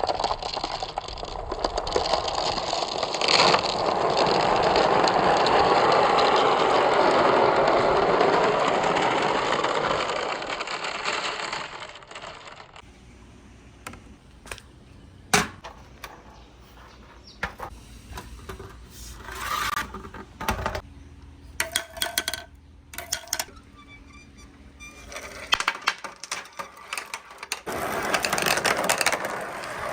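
Marbles rolling and clattering down a wooden marble run. For about the first twelve seconds many marbles rattle together in a dense rush. After that come scattered clicks of single marbles with a few brief ringing tones, and a dense clatter builds again near the end.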